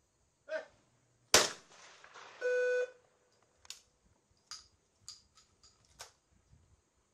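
A short call from the shooter, then about a second later a single loud shotgun shot with a brief echo, followed by a steady electronic beep lasting about half a second and then a run of light, sharp clicks.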